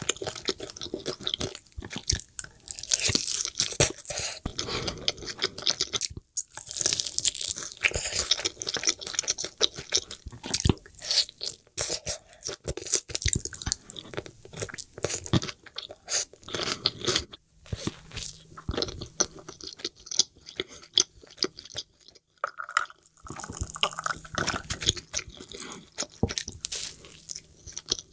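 Close-miked crunching bites and wet chewing of a crispy fried chicken burger, in irregular runs of crackles with brief pauses.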